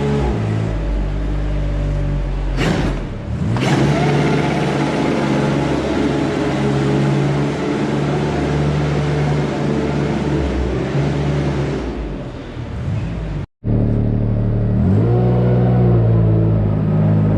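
An engine running steadily with rises and falls in revs. The sound cuts out briefly about two-thirds of the way through, and the revs climb again right after it.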